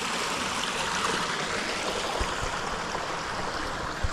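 Stream rushing over rocks: a steady hiss of running water, with a few soft low thumps.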